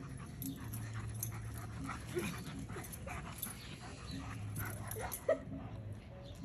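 A dog whimpering in short, thin whines, with one brief louder cry about five seconds in.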